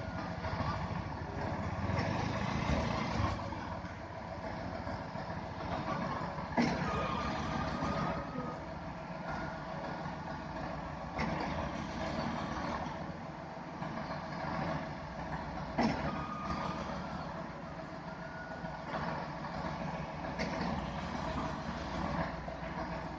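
Heavy diesel truck engines running steadily at a concrete pour, from the concrete pump truck and mixer truck, with a steady whine and a few sharp metallic knocks.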